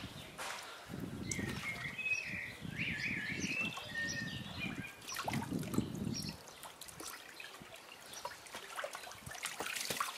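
Water sloshing, splashing and trickling in a shallow inflatable paddling pool as a plastic jug is scooped through it and poured, in uneven bursts with a quieter stretch near the end.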